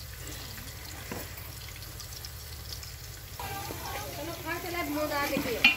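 Sliced onions frying in oil in a large aluminium pot, a steady low sizzle. A little past halfway a person's voice comes in behind it, and near the end the metal ladle clinks sharply against the pot.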